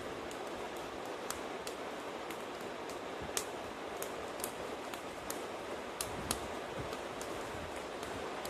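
Wood campfire burning: a steady hiss broken by irregular sharp crackles and pops, about one or two a second.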